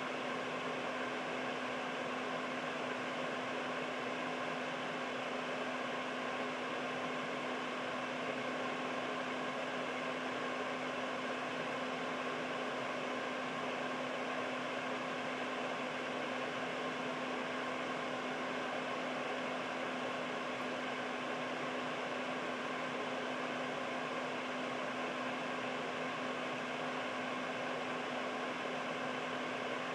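Air purifier fan running steadily: an even rush of air with a steady low hum underneath.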